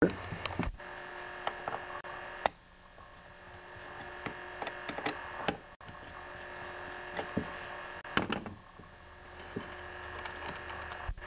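Scattered small clicks and scrapes of a Phillips screwdriver working out the four screws of a Walbro carburetor's metering-diaphragm cover, with the carburetor handled between turns, over a faint steady hum.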